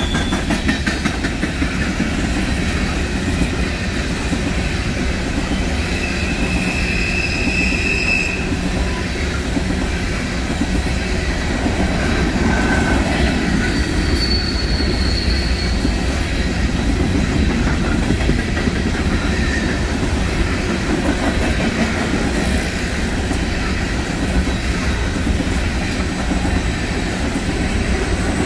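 Coal train's open-top hopper cars rolling past: a steady low rumble of steel wheels on rail with clicking over the joints. A few brief high-pitched wheel squeals come about six seconds in and again around thirteen to fifteen seconds.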